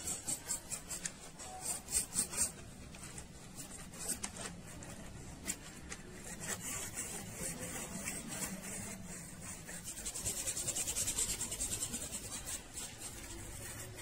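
Cotton swab scrubbing the paint-crusted metal body of an airbrush gun: repeated short, scratchy rubbing strokes, which become a faster, steadier run from about ten seconds in.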